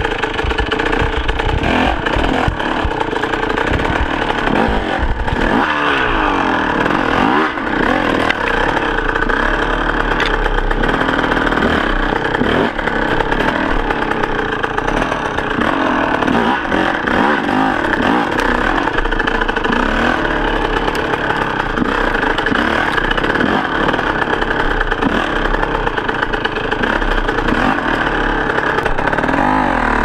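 Enduro dirt bike engine revving up and down continuously under load as it is ridden over rough forest ground, with occasional knocks and rattles from the bike.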